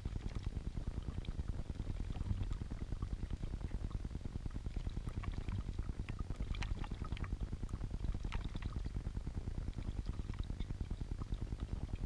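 Small stone yard fountain bubbling and gurgling right beside the microphone, a steady, rapid low burble of water welling up. A few sharper splashes from bathing lesser goldfinches stand out about six to seven and eight seconds in.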